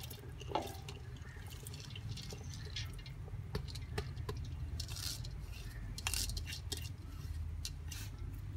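Soaked rice sliding and dropping from a plastic strainer into a stainless steel pot of broth, in short soft hissing rushes with light clicks as the strainer is shaken and tapped against the pot. A steady low hum runs underneath.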